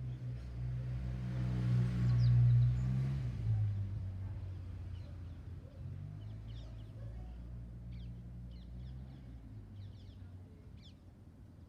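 A motor vehicle passing: a low engine rumble that swells to its loudest about two to three seconds in, drops in pitch, then fades slowly. Small bird chirps come and go over it.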